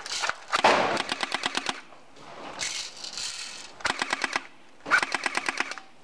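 Airsoft guns firing several rapid full-auto bursts of evenly spaced shots, with short pauses between the bursts.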